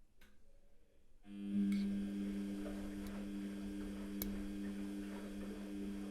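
Washing machine motor starting about a second in, then running with a steady low hum, with a few light clicks and ticks over it.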